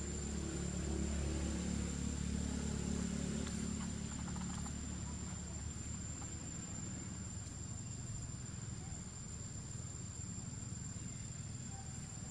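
A motor vehicle's engine hum passing at a distance, loudest a second or two in and fading away by about six seconds, over a steady high-pitched insect drone.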